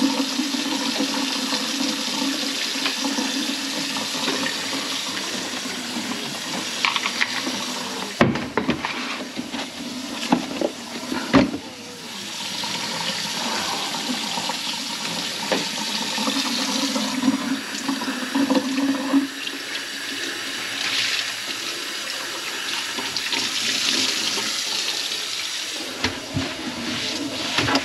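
Water running from a tap into a kitchen sink, with several sharp knocks about eight to twelve seconds in.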